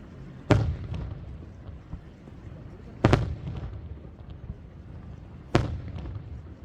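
Aerial firework shells bursting: three sharp booms about two and a half seconds apart, each followed by a low rolling rumble as it echoes away.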